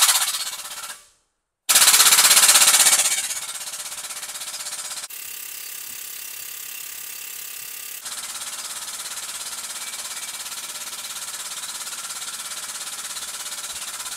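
The air-over-hydraulic pump of a 50-ton shop press chattering rapidly as the ram extends. It stops briefly about a second in, then starts again. After about three seconds it settles into a quieter, steady chatter while the ram presses a dimple die into an aluminum panel.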